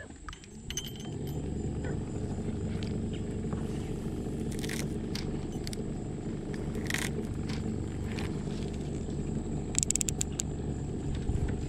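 Boat motor running steadily with a low hum that comes in just after the start. A few brief clicks from a baitcasting reel as a lure is cast and reeled, with a quick cluster of them about ten seconds in.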